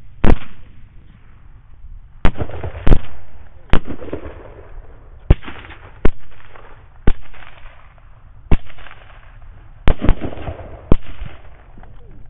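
A volley of rifle shots from several hunters firing on a group of hogs: about eleven sharp cracks in quick, irregular succession, some less than a second apart, each with a short ringing tail. The shots are heard through the thermal scopes' own recorders, which cut off the high end.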